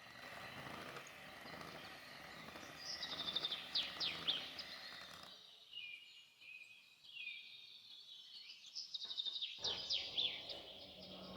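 Birds chirping in quick high trills over a steady background hiss; the low background noise drops out about five seconds in and returns near the end while fainter chirps continue.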